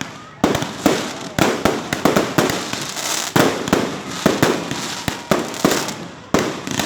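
Fireworks going off in a continuous, irregular string of sharp bangs, about two to three a second, each trailing off before the next.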